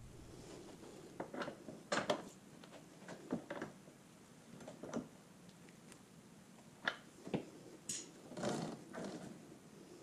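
Irregular metal clicks and knocks of a long wrench working the rear axle nut on a Kawasaki Ninja 650 as the nut is snugged up, with a few sharper clanks among them.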